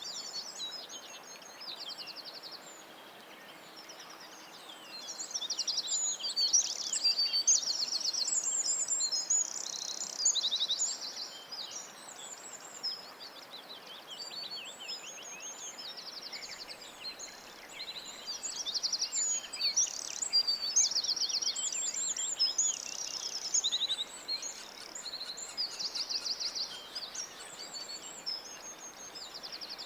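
A chorus of small songbirds singing, with many overlapping chirps, rapid trills and whistled phrases over a faint outdoor hiss. The singing thins out for a few seconds near the start and again in the middle.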